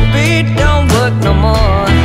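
Background music: a rock song with a steady bass line and a wavering lead melody.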